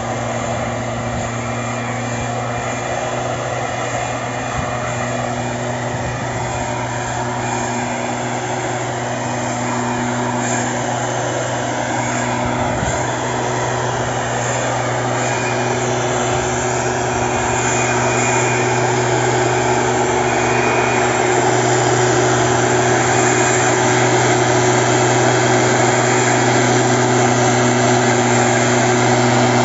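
STIHL SR 420 backpack mist blower's two-stroke engine running steadily under load, with the rush of air and spray blowing out through its long spray tube. It grows gradually louder.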